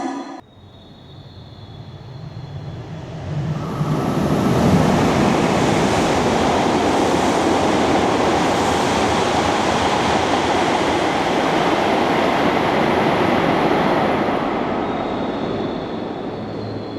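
Hokuriku Shinkansen E7/W7-series train rushing past through the station at high speed. A loud, even rush of air and wheel noise swells over the first few seconds, holds for about ten seconds, and fades toward the end.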